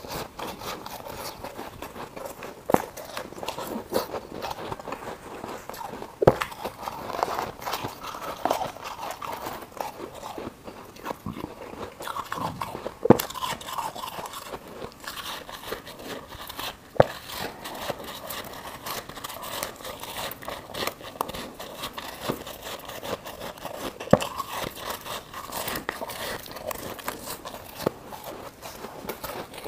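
Frost ice being bitten and chewed, close to the microphone: continuous fine crunching, with a handful of sharp, louder bites a few seconds apart.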